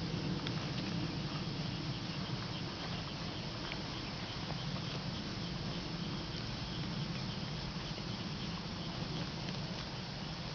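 Polled Hereford heifers grazing close by, tearing and chewing grass in a steady patter, over insects chirping.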